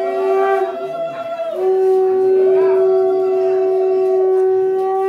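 Conch shell (shankha) blown in long, steady, single-pitched blasts: one ends about half a second in, and after a short break a second blast is held for about three and a half seconds.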